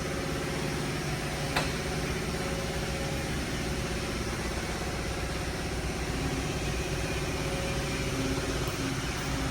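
Car engine idling steadily, with a single sharp click about a second and a half in.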